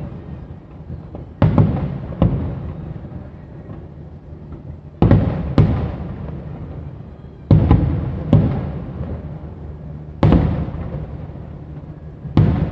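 Aerial firework shells bursting: eight sharp booms, mostly in pairs about two and a half seconds apart, each trailing off in a long rumble.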